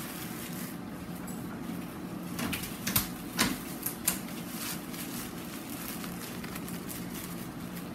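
Sheets of tissue paper rustling and crinkling as they are folded and creased by hand, with a few sharp crackles between about two and a half and four seconds in, over a steady low hum.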